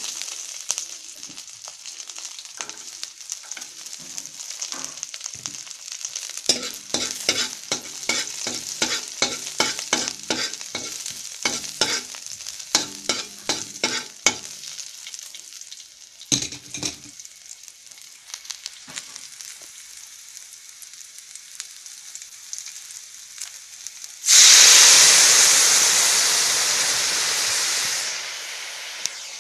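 A metal ladle scrapes and taps against a metal wok as onion and garlic are stirred in sizzling oil, and the pan rings briefly with each stroke. About 24 seconds in, a sudden loud sizzle starts as a brown liquid hits the hot pan, then dies down over a few seconds.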